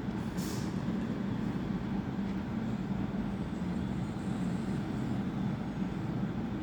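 Train at the platform: a steady low rumble, with a short high hiss about half a second in.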